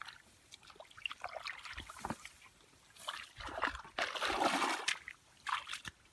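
Hands splashing and sloshing in shallow muddy water, with dripping and trickling between splashes and one louder, longer splash about four seconds in.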